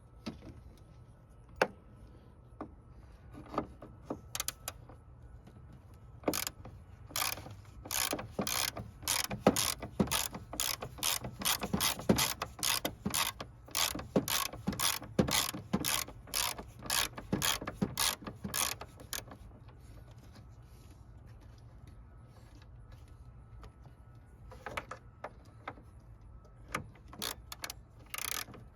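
Hand ratchet wrench clicking rapidly as it turns out a 10 mm bolt. The clicking comes in a long run starting about six seconds in, stops for several seconds, then starts again for a short run near the end.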